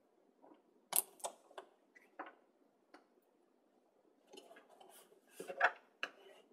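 Chipboard and paper being handled on a tabletop as an adhesive strip is stuck down across a fold. There are a few sharp taps and crinkles in the first three seconds, then rustling and sliding that is loudest about five and a half seconds in.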